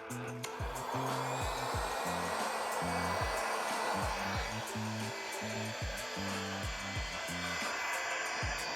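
Heat gun switched on at the start and blowing steadily, warming vinyl graphics on dirt-bike plastics, over background music with a bass line and a steady kick drum.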